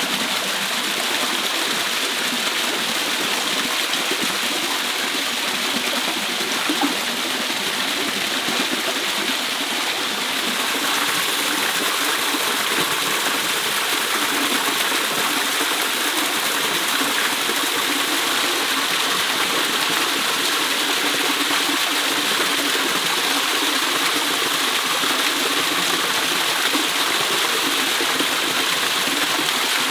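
Small waterfall pouring steadily into a shallow rock pool, an even rushing splash that grows a little louder about ten seconds in.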